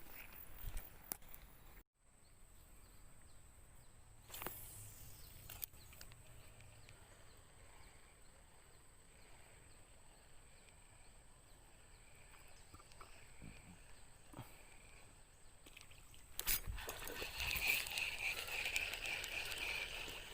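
Outdoor ambience with a faint steady high tone. A few seconds before the end, a louder rough noise with a fast chirping pulse comes in and keeps going.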